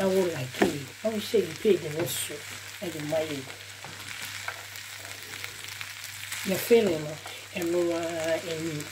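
Minced meat, diced carrots and spring onions sizzling in a frying pan as a spatula stirs and turns them. Wavering pitched sounds come and go over the sizzle, loudest near the start and again in the last second or so.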